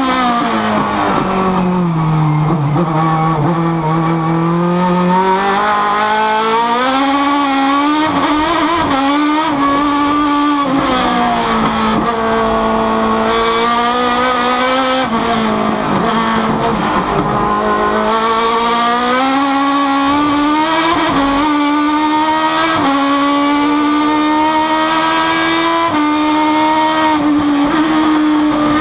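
Súper TC2000 race car's engine heard from inside the cockpit while being driven on track, revs rising and falling through the gears. The pitch drops low about two seconds in, climbs again, and dips once more in the middle before stepping back up.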